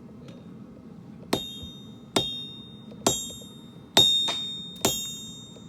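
Hammer blows on steel over an anvil while forging a kunai: five sharp strikes a little under a second apart, each leaving a high metallic ring that fades. The fourth strike is the loudest.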